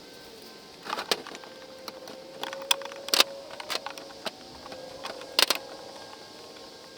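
A series of irregular knocks and clinks, a dozen or so spread over several seconds, over a faint steady hum.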